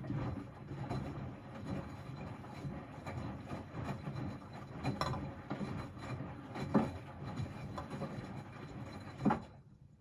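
Miele W 426 washing machine's drum turning, with the laundry tumbling and giving a few dull thumps, then the drum stops about nine and a half seconds in.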